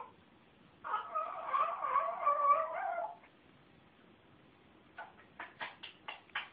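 A pet's long, wavering, complaining vocalization lasting about two seconds, followed near the end by a quick run of short, sharp sounds.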